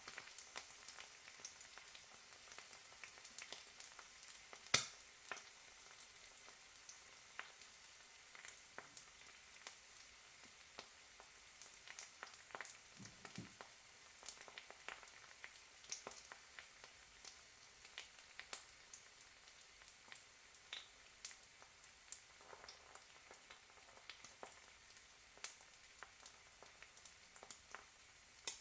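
Egg frying in a hot pan: a quiet, steady sizzle with many small crackles and pops, one louder pop about five seconds in.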